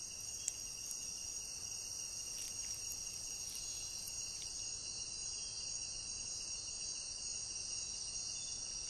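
Steady high-pitched chorus of night-singing insects, with a few faint clicks scattered through it.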